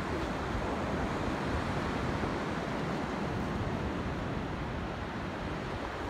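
Steady wash of North Sea surf breaking on a sandy beach, with wind noise on the microphone.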